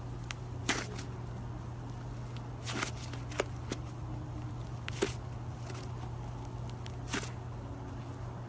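Slime being handled by hand: a few short sharp pops and crackles at irregular intervals over a steady low hum.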